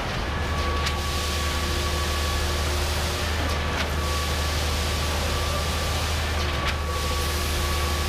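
Concrete boom pump truck running steadily while pumping a concrete pour: a deep, even engine hum, with a short knock about every three seconds.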